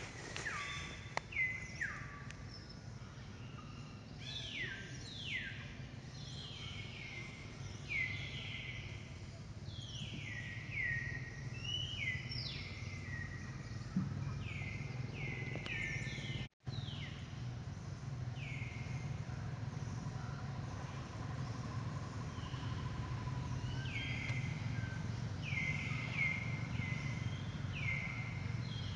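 Birds calling over and over: short notes that each slide down in pitch, coming in quick runs, over a steady low background hum. The sound cuts out for an instant a little past the middle.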